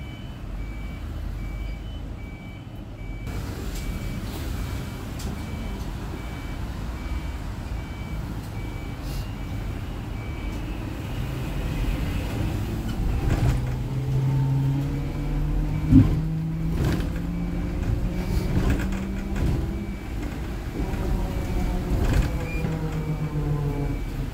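Electric low-floor city bus running, with evenly repeating high electronic beeps throughout. From about halfway, its electric traction motor whines, rising and falling in pitch as the bus speeds up and slows. The uploader suspects the whine is an abnormal motor noise. A sharp knock sounds about two-thirds of the way in, with lighter knocks after it.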